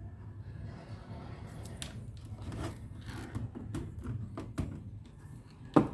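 Small hand-handling noises at a electronics repair bench: a string of clicks, scrapes and rubs, with one louder knock near the end, over a steady low hum.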